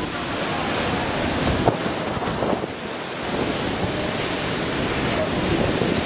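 Sea rushing and churning in a moving cruise ship's foaming wash, a steady rush of water noise, with wind buffeting the microphone.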